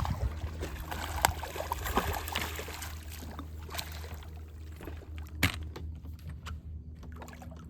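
Water splashing and sloshing beside the boat as a hooked catfish is brought alongside, easing off after the first few seconds. A few sharp knocks come on the boat, the loudest about five seconds in, over a steady low hum.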